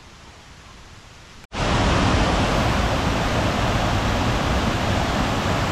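Faint background at first, then, after an abrupt cut about a second and a half in, the loud, steady rush of a tiered waterfall.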